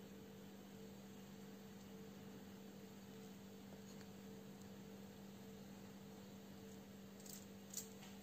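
Near silence: room tone with a faint steady low hum and hiss, and a couple of faint light clicks near the end.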